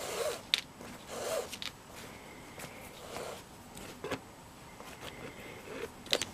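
Braided cord being pulled through the lacing holes of a leather moccasin: soft rubbing swishes of cord on leather, with a few small sharp clicks.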